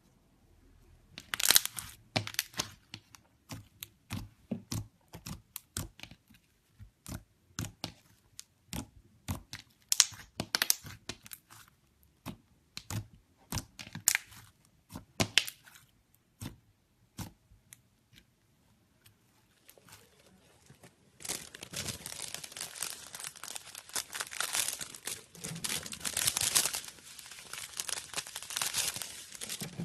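Slime being squeezed and worked by hand, giving sharp, irregular clicking pops. About 21 seconds in these give way to a dense, continuous crackling.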